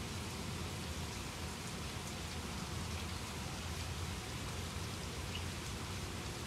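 Steady rain falling, an even, unbroken hiss with a low rumble beneath it.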